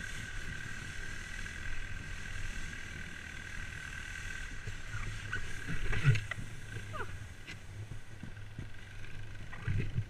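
An ATV engine running steadily ahead, with the low rumble and scrape of a towed wheelbarrow being dragged through snow. About six seconds in there is a loud crunch as the tub tips into the snow.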